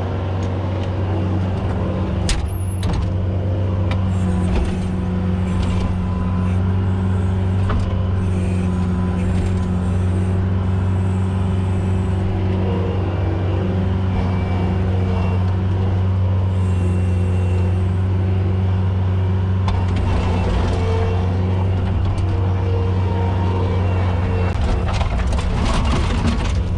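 Skid steer engine running steadily at working speed, with a few knocks, one about two seconds in and more near the end.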